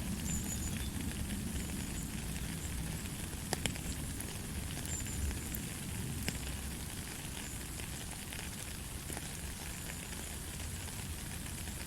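Steady light rain: an even hiss with scattered drop ticks, a few sharper ones about three and a half, five and six seconds in.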